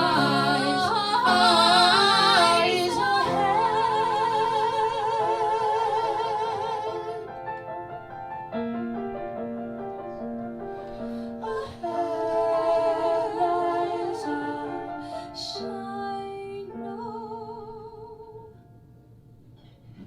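The closing bars of a song from a stage musical: long held sung notes with vibrato over sustained accompaniment, fading out near the end.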